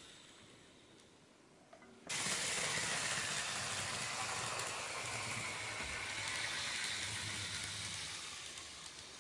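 N-gauge model of a Keihan 5000 series train running into the station: its motor and wheels on the rails make a sudden hissing rush about two seconds in, with a low hum underneath, easing off near the end as it slows to a stop.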